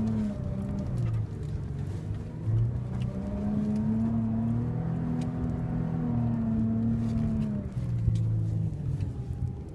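Four-wheel-drive SUV's engine, heard from inside the cabin while driving over sand dunes, its pitch rising and falling as the driver works the throttle, with a few light knocks and rattles.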